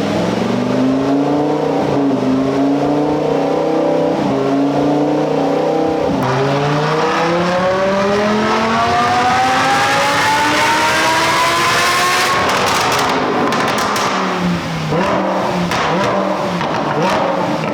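Stock, naturally aspirated Lamborghini Huracán 5.2-litre V10 at full throttle on a chassis dyno: it revs up through the lower gears with quick shifts about two, four and six seconds in, then climbs in one long sweep to about twelve seconds before the throttle is lifted and the revs fall back toward idle. This is a baseline pull before the supercharger is fitted.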